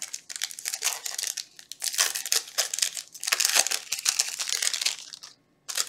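Foil booster-pack wrapper of a Yu-Gi-Oh Maximum Gold pack crinkling and tearing as it is handled and ripped open, with a brief gap near the end.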